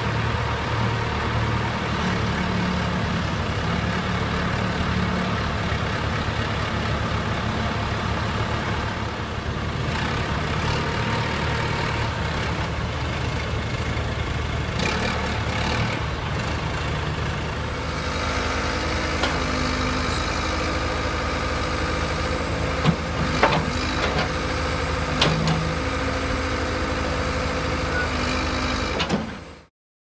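John Deere 310D loader backhoe's turbocharged diesel engine idling steadily, with a few sharp knocks about three-quarters of the way through.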